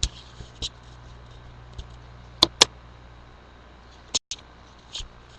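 A few scattered sharp clicks and taps over a steady low hum, the two loudest close together about two and a half seconds in. The sound cuts out completely for a moment just after four seconds.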